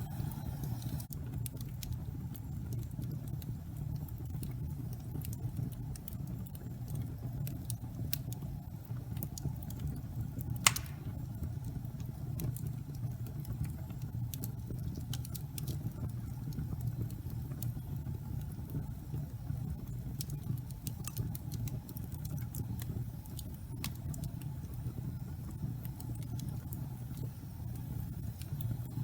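Wood fire in a fireplace crackling over a steady low rumble of the flames, with scattered small pops and one loud pop about ten seconds in.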